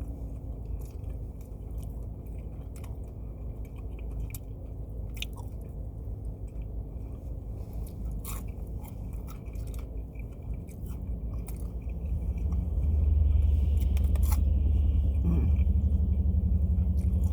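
Close-up chewing and crunching of fried food, with many small crisp bites over a steady low hum. About twelve seconds in, a louder low rumble of a vehicle comes up and stays.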